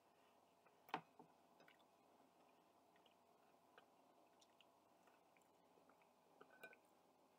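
Faint chewing and mouth sounds of a person eating, with scattered small clicks and one sharper click about a second in.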